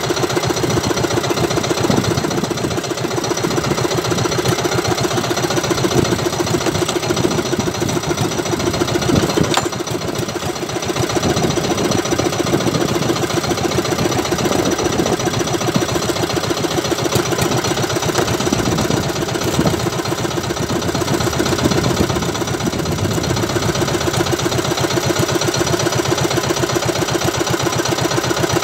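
Outrigger fishing boat's engine running steadily with a fast, even chugging beat.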